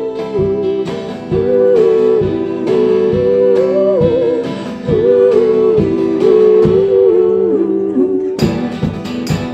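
Live acoustic guitar music: chords strummed in a steady rhythm under a held, gently bending melody line. About eight and a half seconds in, the strumming turns brighter and harder.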